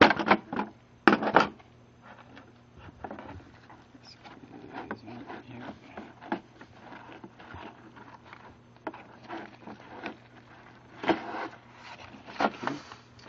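Allen wrench set being handled and taken from its holder in a tool kit: a few loud clacks in the first second and a half, then scattered clicks and rubbing, with another run of clacks near the end.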